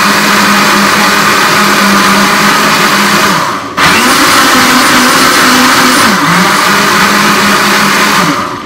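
Countertop blender motor running loud and steady, blending a thick smoothie. It cuts out for a moment about three and a half seconds in and starts again, slows briefly around six seconds, and is switched off near the end.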